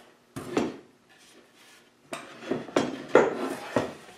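Wooden knocks and clatter as a wooden jig table with a cherry fence is handled and knocked against a workbench: one knock about half a second in, then a quick run of several knocks in the second half.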